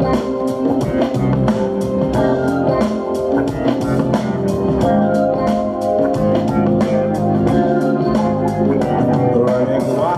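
Instrumental music, with guitar, bass and a drum kit keeping a steady beat.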